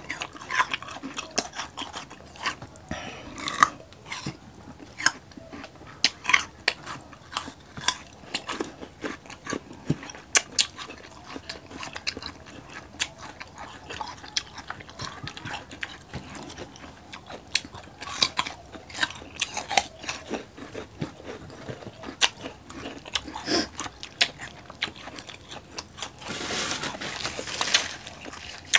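Close-up eating sounds of crispy pork belly (crispy liempo) and rice eaten by hand: repeated sharp crunches and wet chewing and smacking. Near the end comes a brief rustle of a paper napkin.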